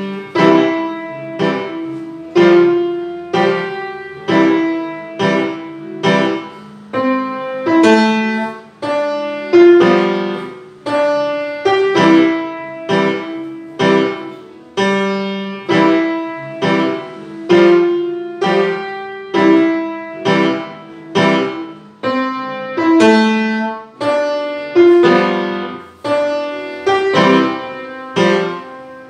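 Grand piano played at a steady march tempo: chords struck about once a second, each ringing and fading before the next.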